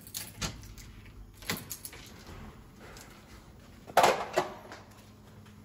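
A few light clicks and knocks, then an apartment front door's latch and handle clacking loudly as the door is opened about four seconds in.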